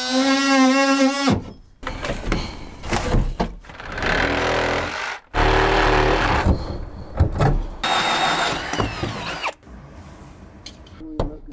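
Handheld power tool cutting into drywall: a buzzing motor tone in several short runs that start and stop, mixed with rasping cutting noise, then quieter after about ten seconds.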